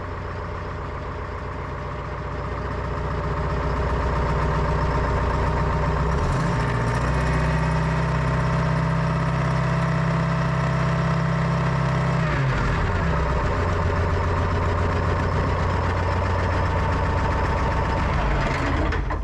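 Pettibone PM245 wheel loader's engine running while the Allison Torqmatic transmission's clutch and converter charge pressures are tested. It speeds up about two seconds in and then runs loud and steady; partway through the pitch climbs, then drops back down about two-thirds of the way in.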